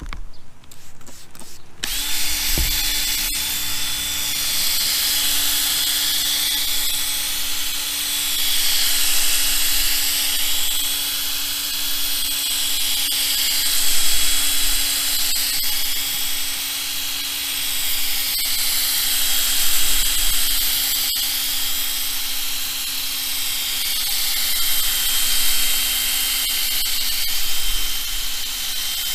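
Power drill driving a 3M headlight-restoration pad against a plastic motorcycle windscreen. It comes up to speed in the first couple of seconds, then runs as a steady motor whine over the hiss of the pad on the plastic.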